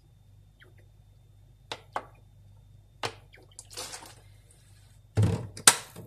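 Vinegar dribbled from a plastic bottle onto a plate of cooked artichokes: a few small clicks and a short faint splash. Near the end come two loud knocks as the bottle is set down on the counter, the first a low thump.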